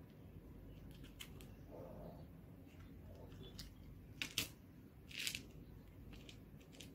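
Faint handling sounds of hand beadwork: light clicks of beads and a plastic bead tray. The two loudest clicks come close together about four seconds in, followed by a brief rustle.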